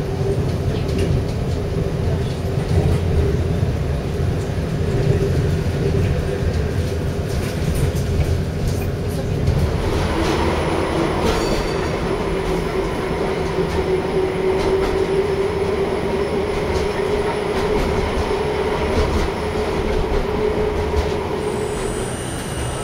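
Škoda 15T tram running, heard from inside: a steady rumble of wheels on the rails under a steady whine. The whine grows louder and brighter about ten seconds in and drops away near the end.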